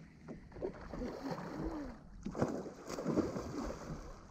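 Water lapping against the hull of a Gheenoe LowTide 25 microskiff, with light wind and a few soft knocks.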